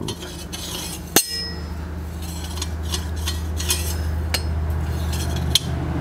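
Light metal clicks and clinks as a steel lawnmower blade is handled against its bent blade adapter, whose lugs won't seat in the blade's holes. One sharp click comes about a second in and a few fainter ticks follow, over a steady low hum.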